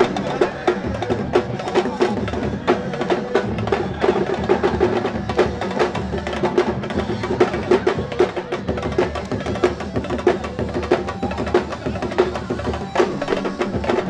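Sabar drumming: several hand drums playing a fast, dense rhythm of sharp strokes without a break.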